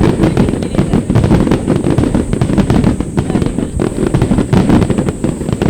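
Fireworks going off in a dense, unbroken barrage of booms and crackling bangs.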